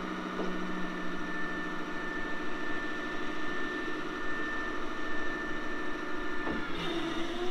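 Tipper truck's diesel engine running steadily as its hydraulic hoist raises the tray to dump a load of dirt, with a steady high whine over the engine note. About a second before the end the whine cuts off and the engine note shifts.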